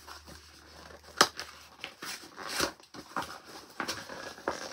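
A cardboard subscription box being opened and unpacked: scattered rustling and crinkling of packaging, with a sharp snap about a second in.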